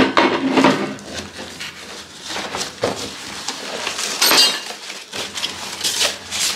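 A flat cardboard box holding portable laptop desk parts being handled and unpacked: irregular knocks, rustles and light clinks as it is tipped and pieces are pulled out, with a louder scrape about four seconds in as the box is lifted.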